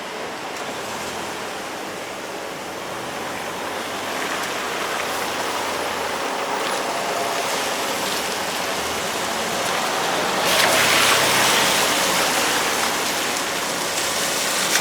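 Steady rushing noise of a vehicle passing the level crossing, growing louder and swelling sharply about ten seconds in, then easing off.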